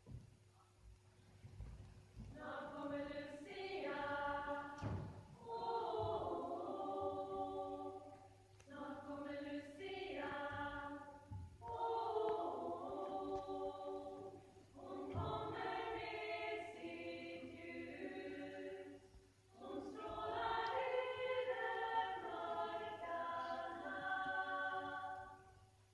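A choir singing unaccompanied, in long sustained phrases separated by short breathing pauses.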